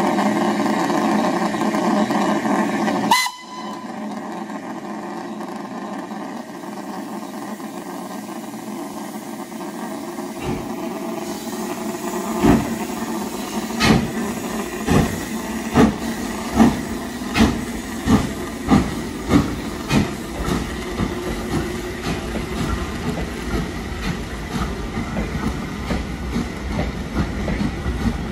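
Maunsell S15 two-cylinder 4-6-0 steam locomotive starting a train away. A loud steady blast of steam stops suddenly about three seconds in, and the cylinder drain cocks hiss. About ten seconds in the exhaust beats begin, slow chuffs that quicken steadily, and near the end the carriages rattle past over the rail joints.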